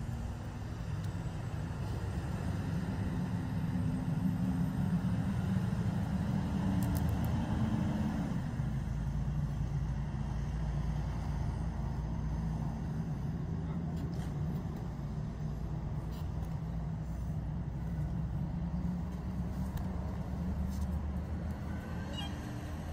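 A motor vehicle engine running steadily, its note dropping in pitch about eight seconds in, with a few faint clicks.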